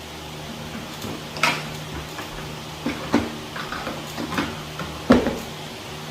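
Hard plastic tool case and the kit's contents being handled: a few scattered knocks and clicks, the loudest about five seconds in.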